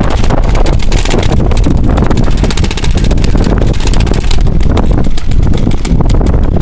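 Strong wind buffeting the microphone, with rapid strings of sharp pops from paintball markers firing, densest in the middle.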